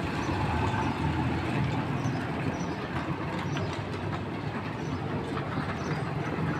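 Vehicle engines on a street: a van drives past close by, then a small motorcycle approaches with a steady low engine hum.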